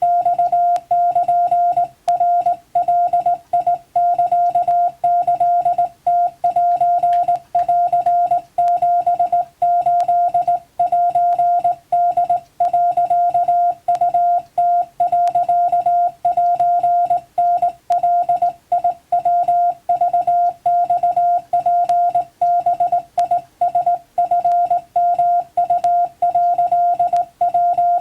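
Morse code sent as a keyed sidetone beep: one steady mid-pitched tone switching on and off in a fast, unbroken run of dots and dashes with short gaps between characters. It is Japanese (wabun) telegram text for code-receiving practice.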